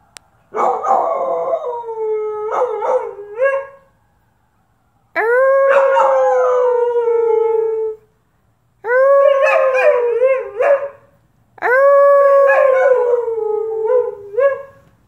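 Four long, wavering howls with short gaps between them: a person howling to set a dog off, with the dog's howl overlapping in the later ones.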